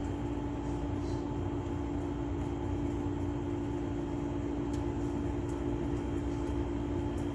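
TOSOT 8,000 BTU window air conditioner running: a steady hum of its fan and compressor with a constant low tone over an even rush of air.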